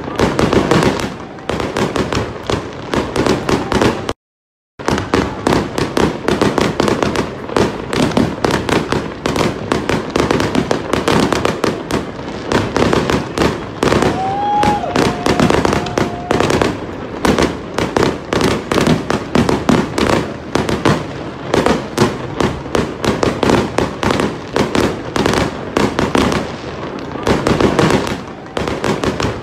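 Aerial fireworks display: a dense, continuous run of crackling and popping bangs from bursting shells. The sound cuts out for about half a second around four seconds in, and a short whistle sounds about halfway through.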